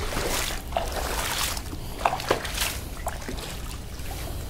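Shallow water trickling and lapping across a flooded tiled terrace, ponded to cure freshly filled tile joints, with a few small splashes scattered through it over a low steady rumble.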